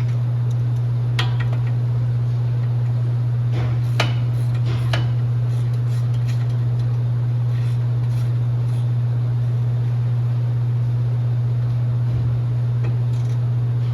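A steady low mechanical hum with a few light metallic clinks of tools and brake parts, about a second in and again around four and five seconds in.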